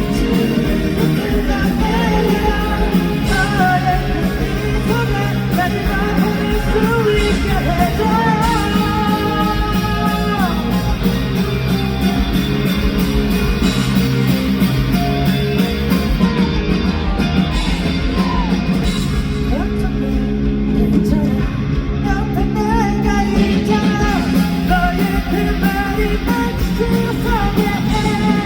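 A rock band playing live with a male lead vocal, electric guitar and a steady drum beat.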